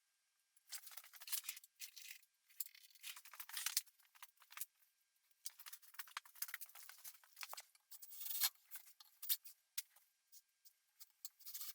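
Faint, scattered light clicks and short scrapes of small metal parts and hand tools being handled at the workbench, in an irregular run.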